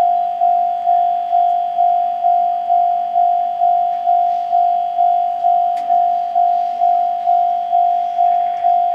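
Railway level-crossing alarm bell ringing, a single electronic ding repeating evenly about twice a second.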